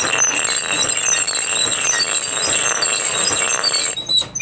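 A steel piece ground against a large stone grinding wheel: a steady, gritty scraping with high ringing tones over it. It starts suddenly and stops about four seconds in.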